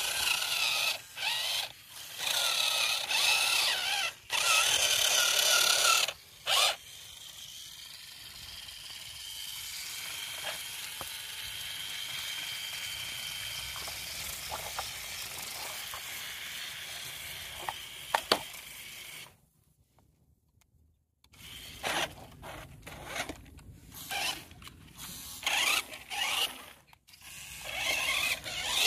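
Toy RC cars' small electric motors and gearboxes whining in short on-off bursts as they are throttled, with a steadier, softer whine through the middle as a wheel spins in sand. The sound drops out briefly about two-thirds through.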